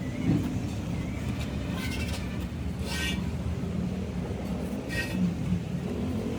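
A steady low engine rumble, with a few brief high-pitched squeaks over it.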